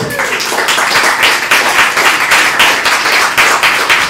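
Audience applause that starts suddenly: many hands clapping quickly and unevenly.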